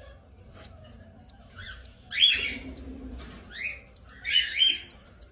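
Lovebirds giving several short, shrill squawks, some sweeping upward in pitch, the loudest about two seconds in.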